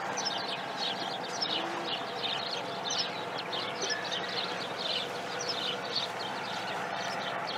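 Many small birds chirping: a dense chorus of short, quick, high chirps overlapping one another, over a low steady background hum.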